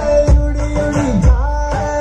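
Indian dance song with a singing voice and a heavy bass beat, played loud through an outdoor stage's PA speakers.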